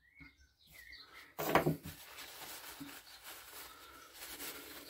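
A knock as a small engine part is set down on the wooden workbench about a second and a half in, then the soft rustle of paper towel rubbing over the parts as they are wiped clean.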